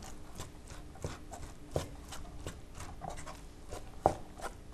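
Wooden rice paddle knocking and scraping against a wooden sushi-rice tub in soft, irregular clicks, as cooked rice is cut and folded to mix in the vinegar.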